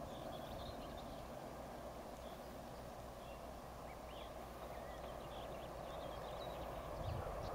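Distant TEP60 diesel passenger locomotive, a two-stroke diesel, approaching with its train: a faint steady rumble that grows slightly louder toward the end, with small birds chirping over it.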